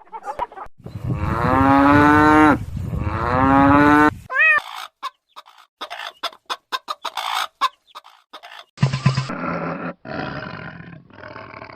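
Farm animals calling: two long, drawn-out calls starting about a second in, then a quick run of short sharp clucks, then more calls near the end.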